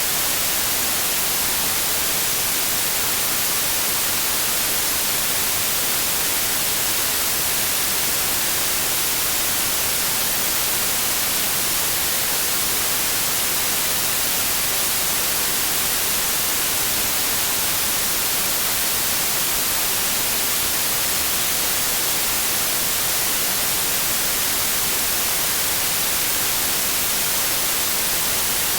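Generated white noise, its energy spread evenly across all pitches: a steady, unchanging hiss, brightest in the treble.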